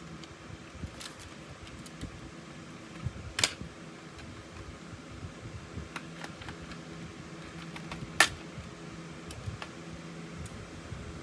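Electric fan running steadily with a low hum, under scattered light clicks and taps, with two sharp clicks standing out, about three seconds in and, louder, about eight seconds in.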